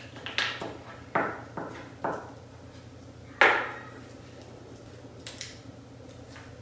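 Hands handling cut magazine paper on a wooden worktable: a series of short knocks and rustles, the loudest about three and a half seconds in.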